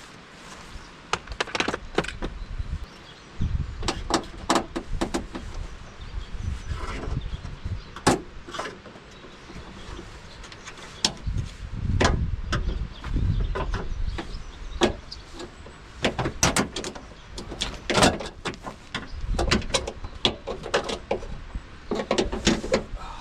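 Scattered plastic clicks and knocks from handling the tailgate trim, connectors and wiring of a Subaru Forester, with stretches of low rumbling in between.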